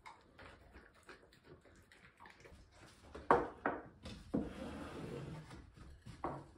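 Dog eating from a plastic bowl: faint, irregular chewing and licking clicks. About halfway through come two loud knocks of crockery on a wooden table, then a couple of seconds of liquid being poured, and another knock near the end.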